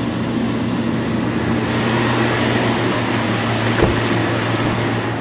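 Steady machine hum from a motor running in the garage, such as a fan or heater, with a hiss of handling noise growing from about two seconds in and a single knock near the four-second mark.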